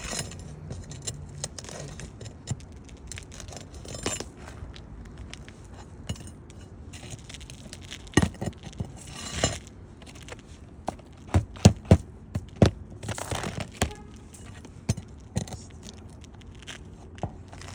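Roof shingles and hand tools being worked: scraping and tearing with light clinks, and a quick run of sharp knocks about two-thirds of the way through.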